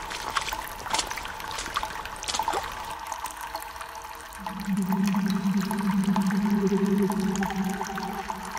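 Water trickling, with scattered small splashes and drips. About four and a half seconds in, a steady low hum comes in and holds until near the end.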